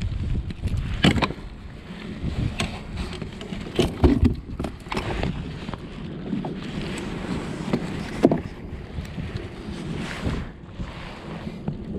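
Jacket fabric rustling and brushing against a chest-mounted action camera as the wearer moves about in a kayak, with a few sharp knocks about one, four and eight seconds in.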